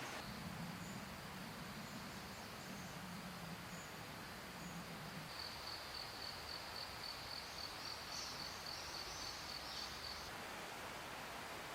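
An insect chirping in a fast, evenly pulsed series of high notes from about five seconds in until about ten seconds, over a steady rush of noise like a nearby stream. A faint low hum runs through the first half.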